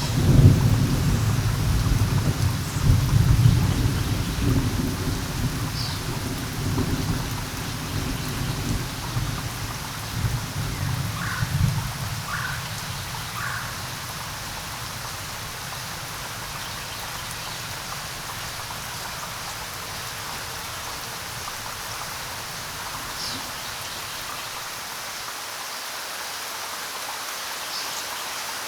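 Steady rain falling, with a low rumble of thunder that dies away over the first dozen seconds, leaving only the even hiss of the rain. A few short chirps sound faintly over it.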